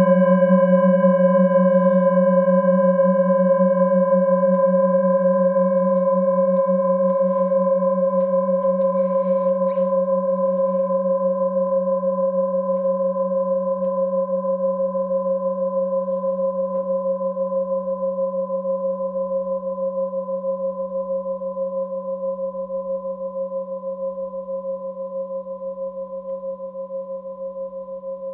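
Metal singing bowls ringing on after being struck: a held chord of a few steady tones with a slow wavering pulse, fading gradually away.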